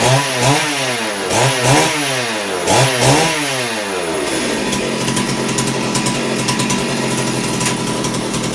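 New Stihl MS 382 two-stroke chainsaw being revved in quick blips, its pitch climbing and falling back about every 0.7 s, before settling into a steady run for the second half.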